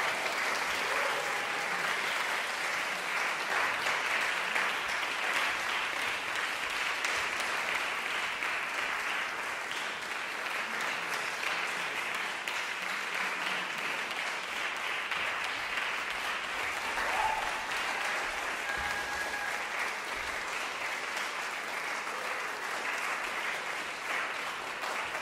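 Concert audience applauding steadily, the clapping easing slightly toward the end.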